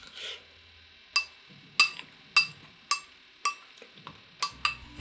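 Metal spoon clinking against a small glass bowl while scooping out tuna mayonnaise, about seven ringing clinks roughly half a second apart. Background music comes back in near the end.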